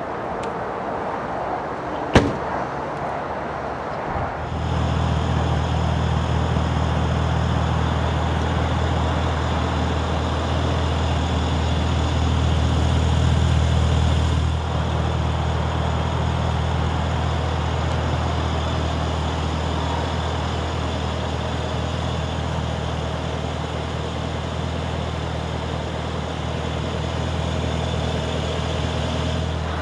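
A car's boot lid slams shut about two seconds in. A couple of seconds later a steady low engine idle starts and holds to the end.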